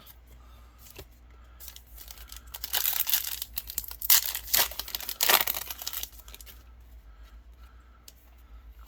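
Foil booster pack wrapper of trading cards being torn open and crinkled: a dense rustling burst starting about two and a half seconds in and lasting some three seconds, with quieter card handling around it.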